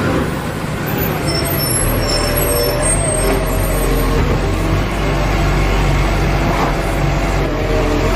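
Heavy truck engine running steadily: a low, even rumble with a hiss over it.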